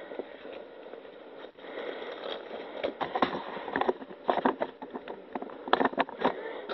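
Rustling and crinkling of a fabric carry bag, plastic bubble wrap and a paper sheet being handled, with irregular short clicks and taps, busiest in the second half.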